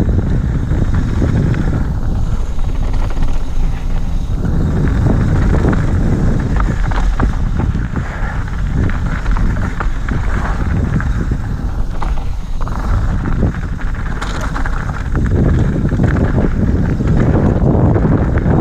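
Wind rushing over an action camera's microphone as a mountain bike descends a dirt trail at speed. Under it, the tyres crunch over loose gravel and the bike rattles and clatters over stones in many quick clicks, easing a little in the middle.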